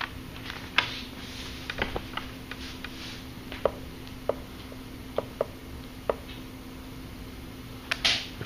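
Classroom sounds while students write notes: a steady low hum under scattered small clicks and taps at irregular intervals, with a short rustle about eight seconds in.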